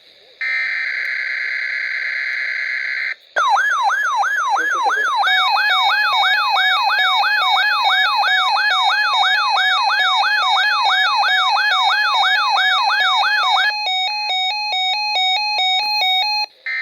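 Electronic emergency-alert tones. A steady buzzy data tone runs for about three seconds, then a siren-like tone sweeps upward about three times a second for ten seconds. Near the end it changes to rapid, stepped alternating beeps that cut off abruptly.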